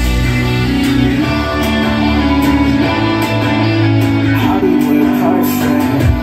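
A song with guitar and deep, sustained bass notes plays loudly over Bluetooth through a Zebronics Juke Bar 9700 Dolby Atmos soundbar and its subwoofer, heard in the room.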